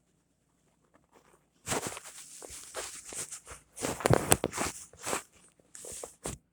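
Rustling, scuffing and light knocks of the camera being handled and moved about while it is being set in place. The noises start after about a second and a half of quiet.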